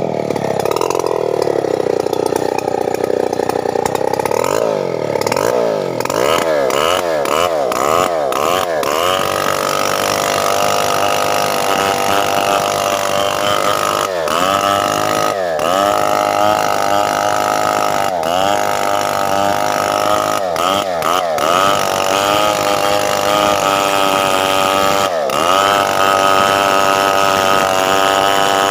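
Stihl 070 two-stroke chainsaw running at high revs and cutting, its engine pitch repeatedly sagging and recovering as the chain bites into the jackfruit log; a quick run of dips about four to nine seconds in, then single dips every few seconds.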